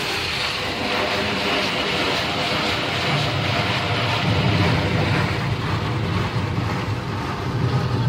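Automatic car wash heard from inside the car: water jets spraying and beating on the windshield and body in a steady hiss, with a deeper rumble joining about three seconds in.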